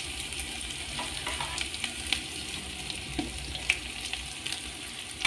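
Food sizzling as it fries in a pan, a steady hiss with scattered sharp clicks of stirring.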